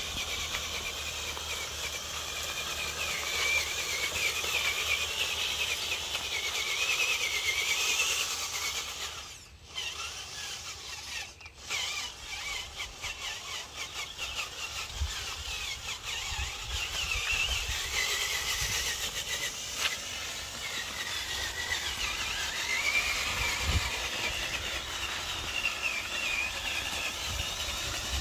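Small electric motor and gearbox of a radio-controlled dump truck whining, its pitch wavering up and down with the throttle, with two short dips in level around ten and twelve seconds in.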